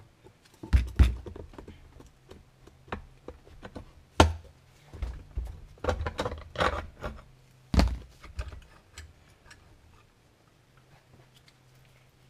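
Knocks and heavy thumps of cast-aluminium Yamaha Banshee crankcase halves being pried apart, the top case lifted off and set down on a workbench, with the loudest thumps about 4 and 8 seconds in. Small ticks of handled parts follow near the end.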